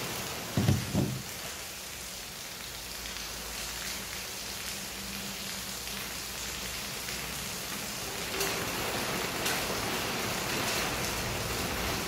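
Steady rain falling, an even hiss of drops, with a few low bumps about a second in.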